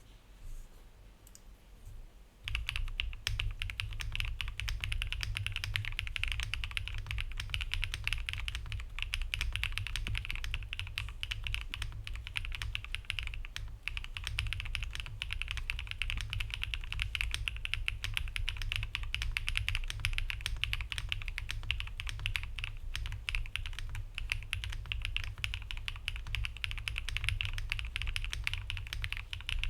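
Fast, continuous typing on a Zuoya GMK61 mechanical keyboard: a dense stream of key clacks that starts about two and a half seconds in and keeps up without a pause.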